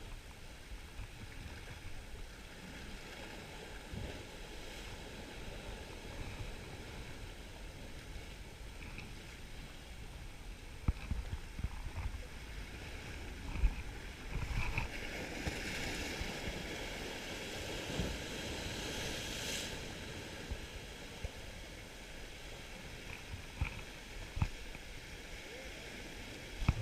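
Rough sea washing against rocks, with a wave surging louder about halfway through, wind rumbling on the microphone and a few sharp knocks.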